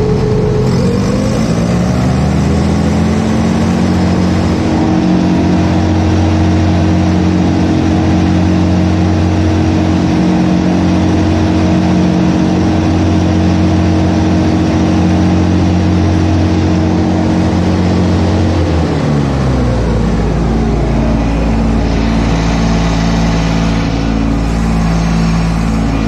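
Ride-on mower engine running under way: it revs up about two seconds in, holds a steady speed, then drops back to a lower, steady speed about three quarters of the way through.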